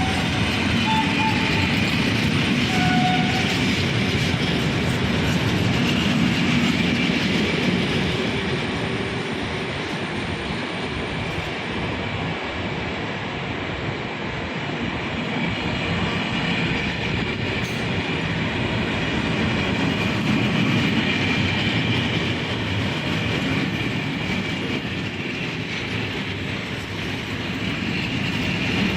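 Train rolling past on the rails, a steady rumble of wheels and wagons, with a few brief high tones in the first three seconds.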